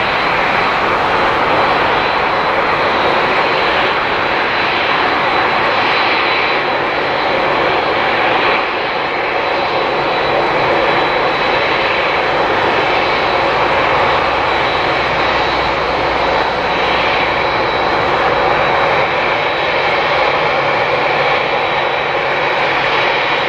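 Boeing 787-9 jet engines running steadily as the airliner taxis: a loud, even rush with a thin high whine on top.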